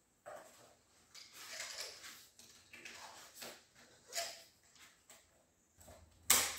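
Electrical wires being handled and fed into a plastic conduit at a wall box: irregular rustling and scraping of cable against plastic, with one sharp, loud click near the end.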